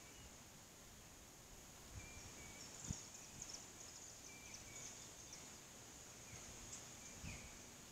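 Faint outdoor ambience: a steady high insect drone with short, repeated bird chirps. There are a couple of soft low thumps, one about three seconds in and one near the end.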